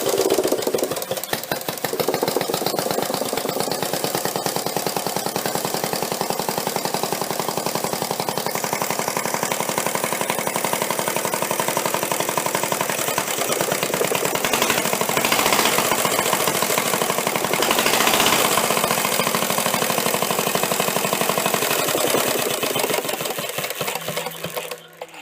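Homemade engine built from a Quincy air compressor's crank and piston, running steadily with a fast, even chugging beat; it fades and stops near the end.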